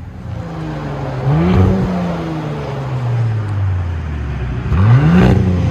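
2019 Audi SQ5 3.0L V6 exhaust, with the rear muffler and front resonator deleted and only the middle resonator left, revving twice. Each time the pitch rises quickly, then falls back slowly toward idle. It is still fairly quiet and deep.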